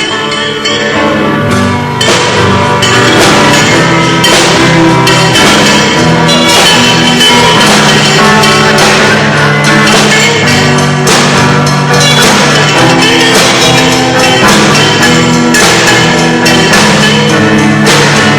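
Live rock band playing loudly at a soundcheck, drums with sustained bass and guitar notes; the band comes in fuller about two seconds in.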